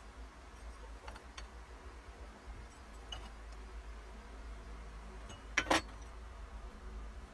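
A few light clicks of a machined aluminum cam wheel being handled, then, about five and a half seconds in, a short double clink as it is set down on the wooden workbench, over a steady low hum.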